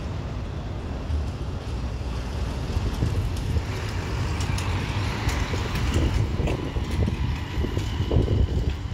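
Distant Airbus A321neo jet airliner on approach, its engines a hiss that grows louder with a faint steady whine from about halfway. Under it is a low rumble of wind on the microphone and road traffic.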